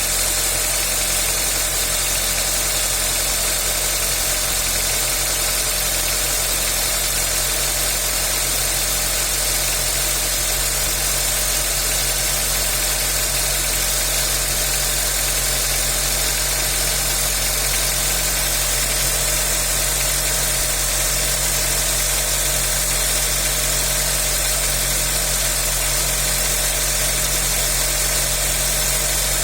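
Honda Accord 2.0 four-cylinder petrol engine idling steadily.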